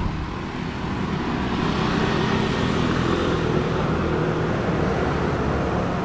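City street traffic: cars and motorbikes running past, a steady rush of engine and tyre noise that grows louder over the first couple of seconds, then holds.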